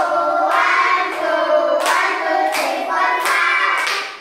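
A group of young children singing together in unison, with several hand claps in the second half.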